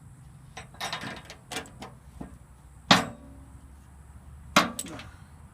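Wrench working a nut loose on a loader's hydraulic cylinder: a run of quick metal clicks about a second in, then a few sharp metal clanks, the loudest about three seconds in.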